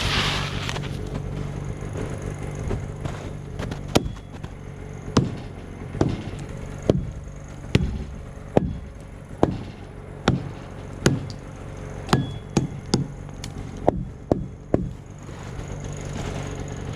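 Axe chopping wood: about fifteen sharp strikes, a little under a second apart, starting about four seconds in, coming faster near the end and stopping a couple of seconds before the end. A steady low hum runs underneath.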